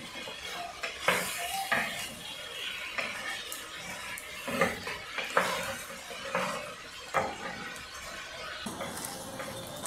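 A wooden spoon stirring and scraping beef chunks in a glazed clay cazuela, with irregular knocks against the pot, as the meat fries in hot oil with a light sizzle underneath.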